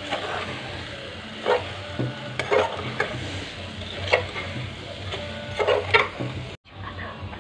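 Steel spoon stirring a potato and parwal curry in a pressure cooker pot, knocking and scraping against the metal sides several times over a steady sizzle of frying. A brief gap of silence near the end.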